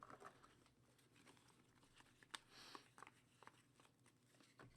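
Near silence, with faint scattered clicks and a brief soft rustle of trading cards being handled.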